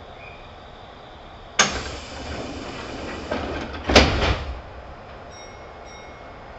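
Kintetsu 2800 series passenger car's sliding doors closing: a sudden loud noise about a second and a half in as they start to close, then a louder thud about four seconds in as they shut.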